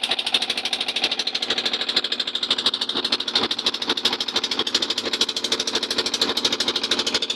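The small engine of a fishing boat running steadily, with a rapid, even beat of firing pulses.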